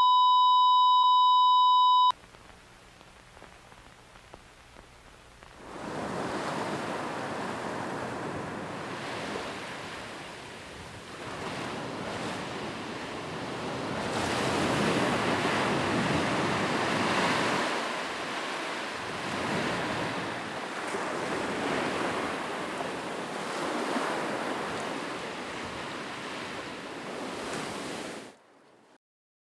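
A steady electronic tone sounds and cuts off about two seconds in. After a few seconds of faint hiss, ocean waves wash in, swelling and easing in slow surges, and they stop abruptly near the end.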